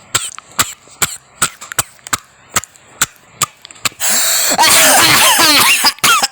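A person laughing: a run of short, sharp breathy huffs, two or three a second, then about two-thirds of the way through a loud, wheezing laugh with swooping pitch.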